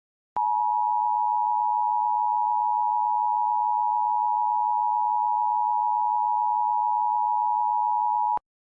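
Emergency Alert System attention signal: the two-tone 853 and 960 Hz alarm held steady for about eight seconds, starting about half a second in and cutting off sharply. It marks a Required Monthly Test, and the spoken test message follows.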